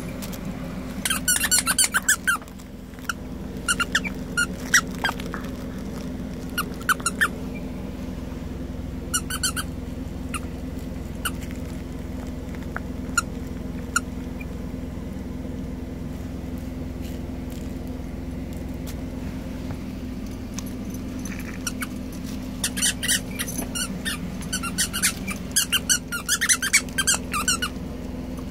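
Dog chewing a plush squeaky toy, making runs of quick high-pitched squeaks in bursts with pauses between them, and a long dense run of squeaks near the end.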